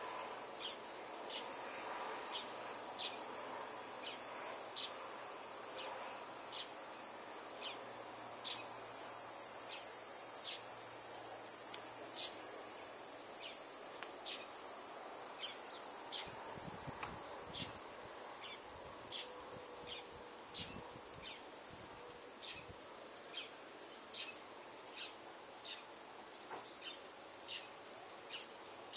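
Cicadas droning steadily at a high pitch. A second, louder and hissier song joins about a third of the way in and fades out a few seconds later, over a faint ticking about one and a half times a second.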